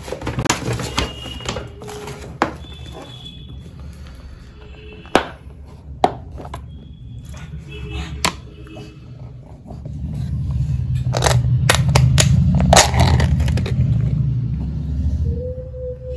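Soft background music with short held notes. Over it come clicks and paper rustling as a paper bag and a plastic food box are handled. In the second half a low rumble builds, peaks and fades, and is the loudest thing heard.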